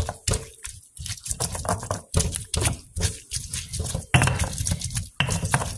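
Stone pestle pounding and grinding roasted serrano chiles with salt in a volcanic-stone molcajete: repeated, irregular knocks and scrapes as the chiles are mashed into a paste.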